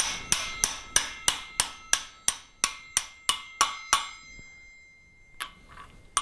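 Hammer tapping a metal sleeve held over a washing machine transmission shaft, driving the top of the clutch assembly down onto it. Steady metal-on-metal taps, about three a second with a short ringing after each, for about four seconds. Then a pause and two lighter taps.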